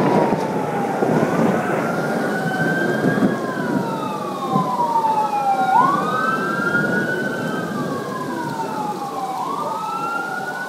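An emergency-vehicle siren wailing, its pitch sweeping slowly up and down about once every four seconds, over the steady hiss of heavy rain.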